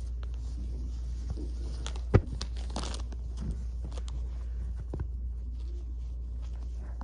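Rustling and handling sounds with scattered light clicks and a sharp knock about two seconds in, over a steady low hum.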